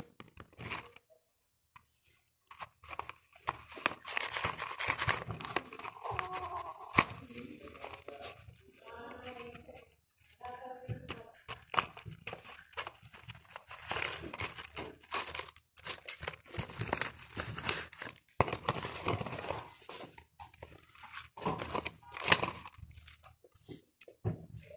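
A handmade paper snack bag and the paper cut-out pieces inside it crinkling, rustling and crunching in irregular bursts as they are handled and tipped out onto a table.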